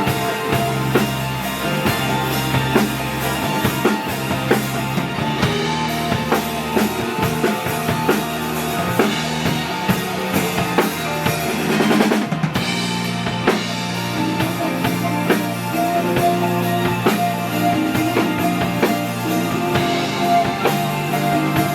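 Live band playing, with a drum kit keeping time on bass drum, snare and rimshots under held notes from the other instruments. A drum fill swells about halfway through.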